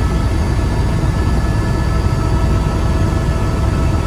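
Helicopter in flight heard from inside the cabin: a steady low rumble with a flutter at the bottom and a few constant high whining tones above it.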